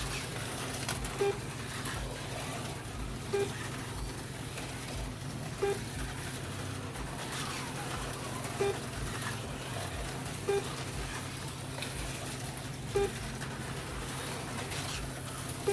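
HO-scale slot cars running laps, a steady electric motor whir and hum, with a short electronic beep every two to three seconds from the lap-counting system as cars cross the line.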